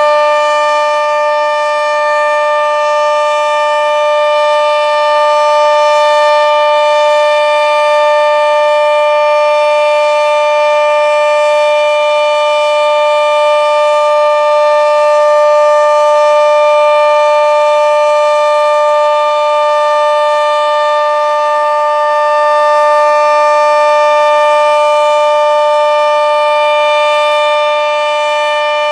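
Sentry 40V2T dual-tone outdoor warning siren sounding the full alert signal: a steady two-tone chord held at one pitch without rising or falling, extremely loud.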